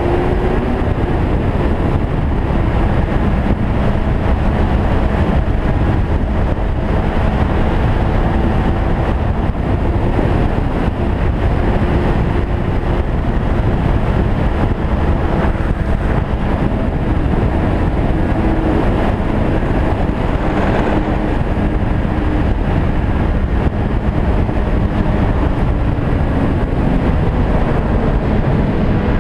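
Snowmobile engine running steadily over a dense rumble as the sled travels along the trail. Its note shifts a little and starts to rise near the end.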